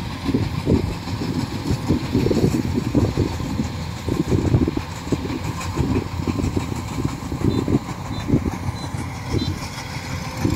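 Kubota rice combine harvester's diesel engine running under load as it cuts through standing rice, an uneven low rumble.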